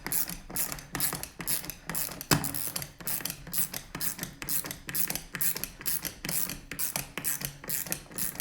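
Hand ratcheting screwdriver clicking in a steady rhythm, about three clicks a second, as a screw is driven in by hand, with one louder knock about two seconds in.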